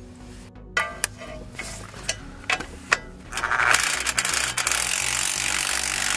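Impact wrench hammering out a front strut-to-knuckle bolt. It starts about three seconds in and runs loud and steady, after a few metal clicks and knocks as the socket and wrench are set on the bolt.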